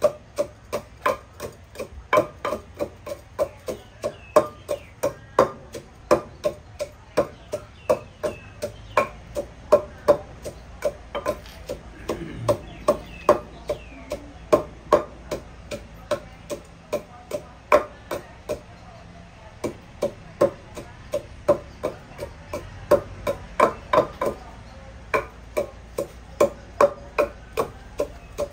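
Wooden pestle pounding in a clay mortar, a steady rhythm of about two to three knocks a second, with a short pause about two-thirds of the way through.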